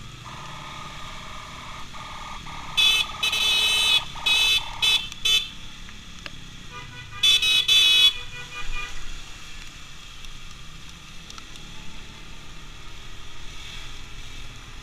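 Vehicle horns honking amid traffic. A steady horn tone holds for about the first five seconds, overlaid by a run of loud, short, high-pitched horn blasts about three to five seconds in and another quick run about seven to eight seconds in, over the low rumble of motorcycle and road traffic.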